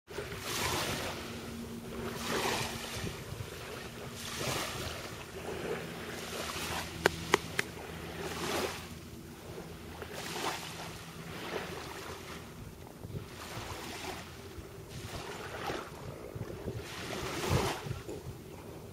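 Small waves washing in at the shore, swelling and falling back every two seconds or so, with three sharp clicks about seven seconds in.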